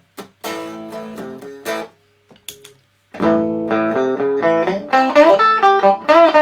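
Yamaha Pacifica electric guitar played through a small Fender solid-state amp: a couple of seconds of chords on the dry sound, a short break, then from about three seconds in a louder, busier run with bent notes, the level stepping up as a boost pedal is switched in.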